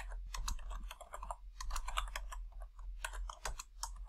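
Computer keyboard typing: quick runs of keystrokes in a few short clusters, over a low steady hum.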